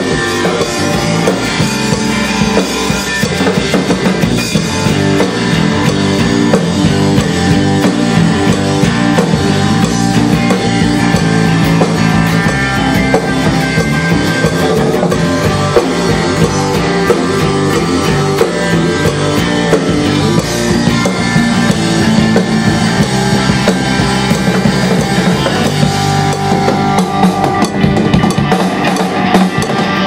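Loud rock music from a band: a drum kit with bass drum and cymbals driving a steady beat under electric guitar.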